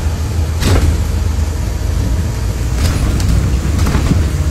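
Steady low rumble of a moving bus, heard inside the cabin, with a few light knocks and rattles about a second in and again around three seconds.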